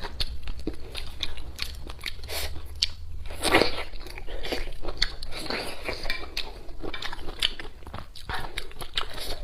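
A person eating close to the microphone: wet chewing and smacking mouth sounds with irregular crunchy bites.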